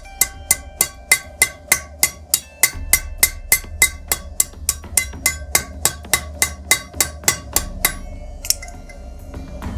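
Hand hammer striking a hot mild-steel spearhead socket over the anvil horn: a steady run of ringing blows, about three a second, that stops near the end.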